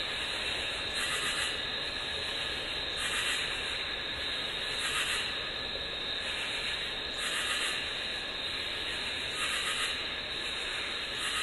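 A steady hiss of noise that swells softly about every two seconds.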